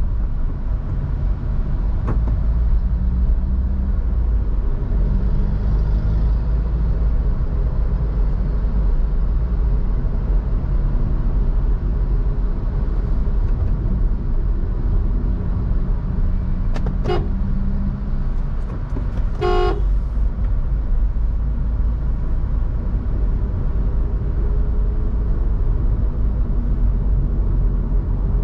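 Steady low rumble of a car driving through city traffic. Partway through there is a sharp click, followed a couple of seconds later by one short car-horn toot.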